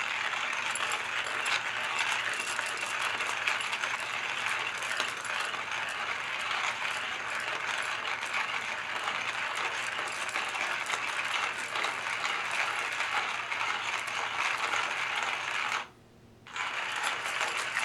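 Porlex Mini hand coffee grinder's conical burr crushing coffee beans as the handle is cranked: a steady crunching rattle that stops for under a second near the end, then starts again.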